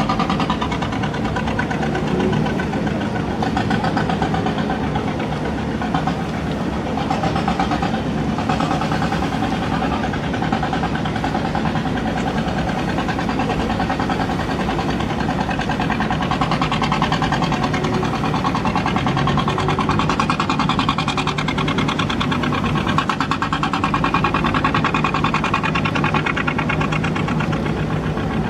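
Boeing Jetfoil's engines running steadily, a loud continuous machinery sound with a fast, even pulsing.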